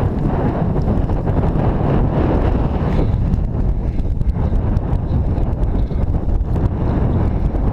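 Wind buffeting an action camera's microphone: a loud, steady, low rumble that flickers without pause.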